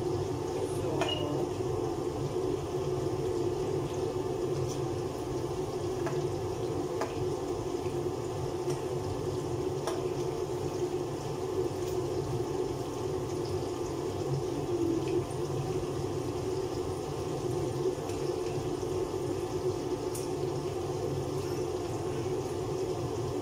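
Steady whir and bubbling of cooking at the stove, with food frying in a pot of oil. A few light clicks come from the metal ladle against the pot.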